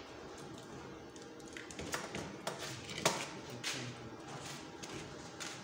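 A few light taps and knocks of a steel tape measure and tools being handled on a square-tube steel frame on a workbench, the sharpest about three seconds in.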